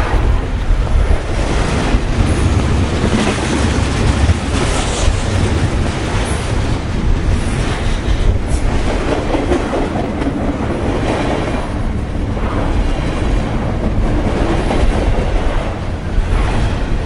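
HO scale model passenger train running along the track, a steady rumble of wheels and motor on the rails.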